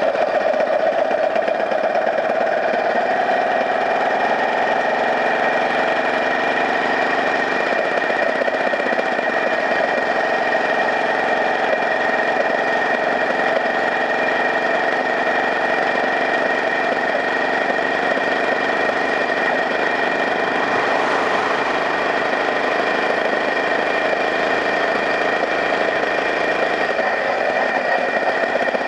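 Engine of the vehicle carrying the camera, running steadily while it drives along a road, with a steady high whine over the engine note.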